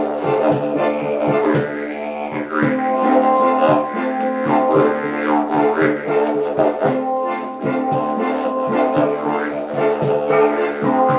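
Didgeridoo drone with sweeping, shifting overtones, played together with a hang struck in a quick rhythm of ringing tuned notes.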